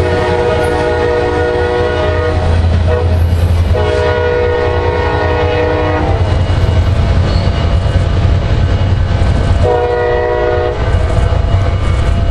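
Freight train rolling past with a steady low rumble of wheels on rail, while the lead locomotive's air horn blows two long blasts and then, after a pause, a short one: the opening of the long-long-short-long grade-crossing signal.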